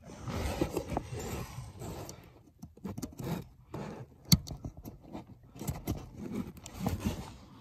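Irregular clicks, knocks and scrapes of hands working a wiring plug and its wire in under plastic interior trim.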